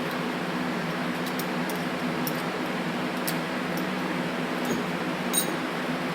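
Steady hum of a fan running, with a few faint, light clicks of small metal parts being handled, the sharpest a little over five seconds in.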